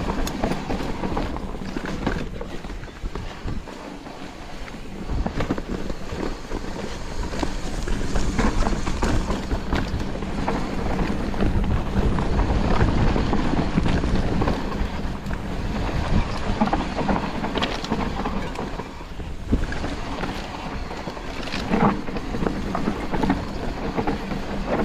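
Mountain bike riding down a dirt trail: wind noise on the microphone over the tyres rolling on dirt, with the bike rattling and clattering over bumps. It grows louder from about eight seconds in.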